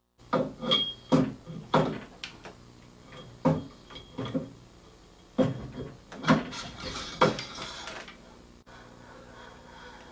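Irregular metallic knocks and clanks, about nine in all, some with a brief high ring, as the phoroptor arm and its collar are handled on the steel stand pole.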